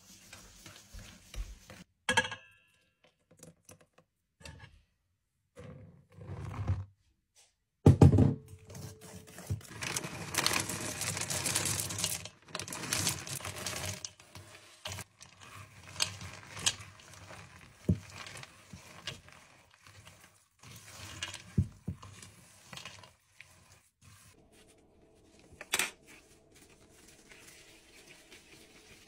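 Kitchen handling sounds around a stainless steel mixing bowl: a whisk clinking against the bowl, a loud thump about eight seconds in, then a few seconds of chocolate chips and chunks pouring in with a dense rattle. Scattered light knocks follow as the cookie dough is mixed and portioned.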